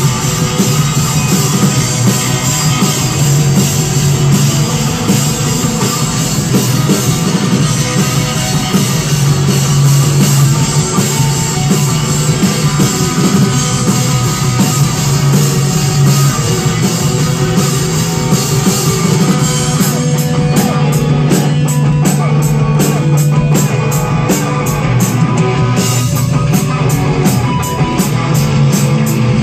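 Live rock band playing loud: electric guitars, bass and a drum kit going without a break. About two-thirds of the way through, a sharp, regular beat comes to the fore.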